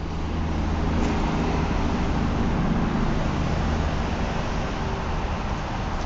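Low, steady engine rumble of a passing vehicle, building over about the first second and easing slightly near the end.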